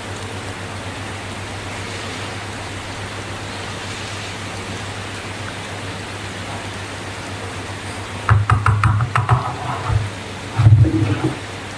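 A steady rain-like hiss over a low hum, then from about eight seconds in two loud bursts of close handling noise: clicks and rubbing, a few seconds apart.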